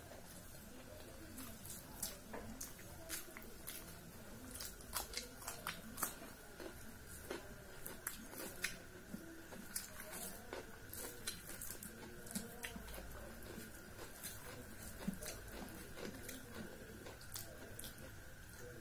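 A person chewing rice and curry eaten by hand, with wet mouth smacks and many irregular sharp clicks, and fingers mixing rice on a steel plate.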